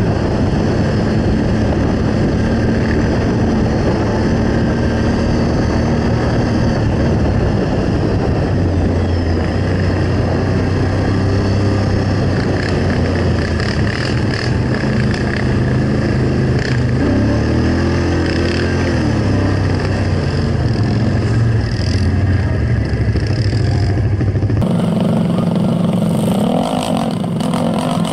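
Snowmobile engine running under way, heard from on board, its pitch rising and falling about two-thirds of the way through. Near the end the sound changes abruptly to a lower, steadier engine note.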